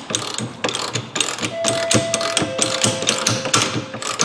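Metal tools working a seized rear suspension bolt: a run of irregular, sharp metallic clicks and knocks. About a third of the way in, a ringing metal tone sounds briefly.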